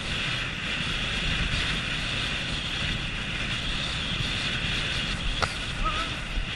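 Steady wind rush buffeting the microphone of a rider's head-mounted camera while riding a horse at speed across a grass field. About five seconds in there is a sharp click, followed by a brief high chirp.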